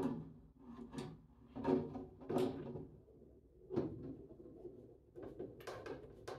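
Hand work on car trim: a series of irregular light knocks and clunks as parts and a screw are fitted to the car body.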